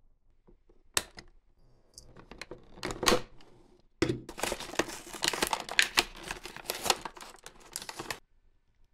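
Toy packaging being handled and opened by hand: a few sharp clicks, then about four seconds of dense rustling and crackling of plastic and cardboard that stops abruptly.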